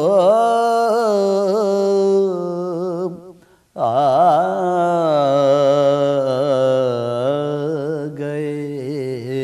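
A man's solo voice chanting a devotional Urdu manqabat, drawing out long melismatic notes in two sustained phrases, with a brief breath pause about three and a half seconds in.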